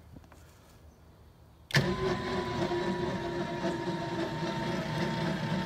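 An engine starts abruptly about two seconds in and settles into a steady run.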